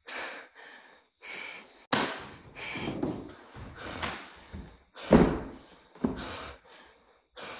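Short, quick, breathy gasps close to the microphone, broken by a few sharp thumps of handling noise; the loudest thumps come about two and five seconds in.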